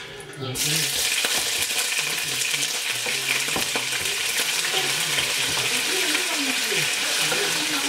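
Chopped vegetables scraped off a wooden cutting board with a wooden spoon into a hot pot, bursting into a sizzle about half a second in. The sizzle then holds steady, with a few light scrapes and taps of the spoon.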